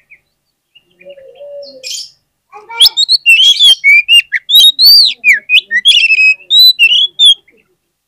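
Oriental magpie-robin singing: after a quiet start, about three seconds in it bursts into a rapid, loud run of varied whistled notes, rising and falling in pitch, mixed with short sharp clicks, for about four and a half seconds.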